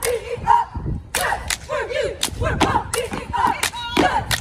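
Cheerleaders chanting a cheer together, punctuated by sharp claps and thuds from hands and stomping feet.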